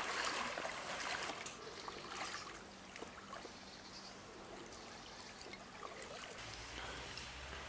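Lake water sloshing and trickling as swimmers wade out of the shallows, with small splashes and drips; a little louder in the first two seconds.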